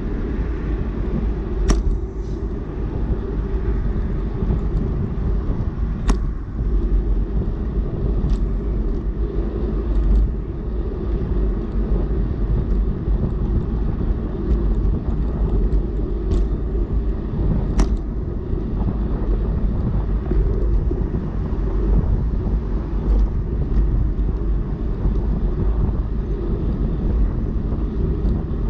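Steady low rumble of wind and road noise on a camera riding along on a bicycle, with several sharp clicks or knocks scattered through.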